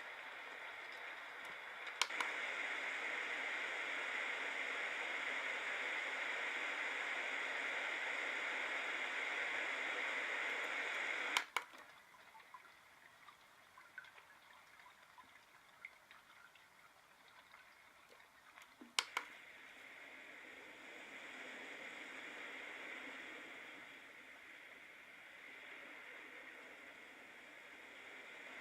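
Small white noise machine playing its built-in sleep sounds through its speaker, switched between tracks with button clicks. A steady hiss gives way after a click to a quieter trickle with small drips, and after another click to a hiss that slowly rises and falls.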